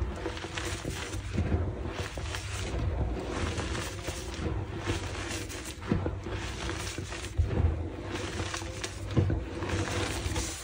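Slices of pressed gym chalk topped with holi powder being crushed and crumbled, with continuous irregular crunching and crackling and a few sharper cracks.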